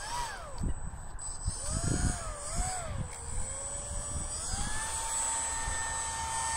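3D-printed model airboat's air propeller and motor whining as it drives across the water. The pitch wavers and dips with the throttle over the first few seconds, rises sharply about four and a half seconds in, then holds steady.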